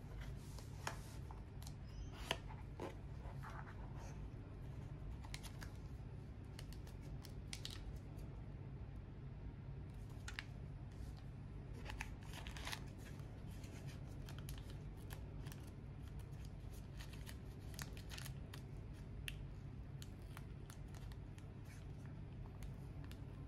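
Gloved hands handling a cardboard product box and its paper inserts: scattered light taps, scrapes and rustles over a steady low hum. Near the end comes the soft crinkle of a thin wrapping sheet being pulled out.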